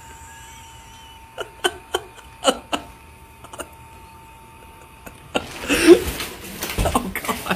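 A few short sharp clicks, then a man laughing hard in loud, breathy bursts for the last couple of seconds.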